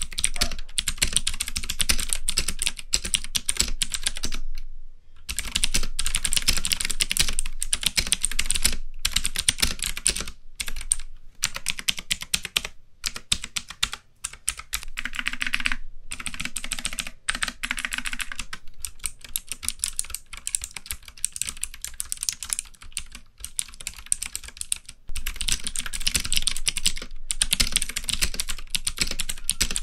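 Typing on a K550 tenkeyless mechanical keyboard with clicky blue switches: a fast, continuous run of loud clicky keystrokes, pausing briefly about five seconds in.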